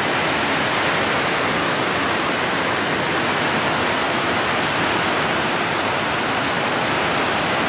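Heavy tropical downpour, rain pouring down in a steady, even hiss.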